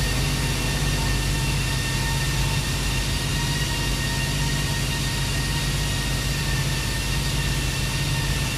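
Steady drone of running machinery: a constant low hum with several thin, steady high-pitched whine tones above it.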